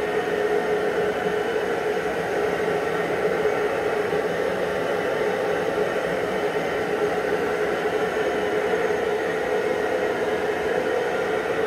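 Steady noise of running shop machinery: a constant hum over an even hiss, with no hammer blows.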